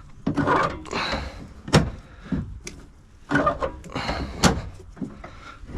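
Stiff hood latch mechanism of a 1948-50 Packard being worked back and forth, with rough metal scraping and a couple of sharp clicks. The latch has just been freed from being seized and is still stiff.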